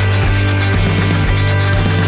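Background rock music with a heavy, distorted guitar-and-bass sound.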